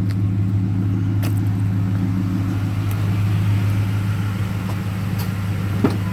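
Ford F-150 pickup's engine idling steadily with a low, even hum. A single sharp click comes near the end.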